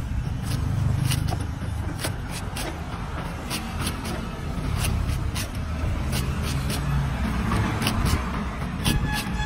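Cleaver blade striking and slicing through a young green coconut's husk against a wooden chopping block: a run of sharp, irregular chops, about one or two a second. A steady low rumble runs underneath.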